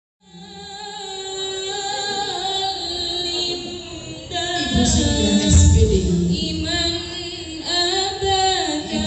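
Music with singing, a woman's voice leading, fading in just after the start and growing fuller and louder about halfway through.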